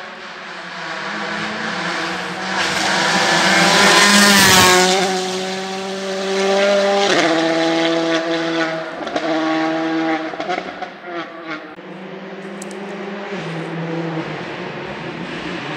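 Rally car passing at speed on a special stage: its engine grows loud to a peak about four seconds in, then pulls away through the gears with a shift at about seven seconds, a few sharp pops, and fades out.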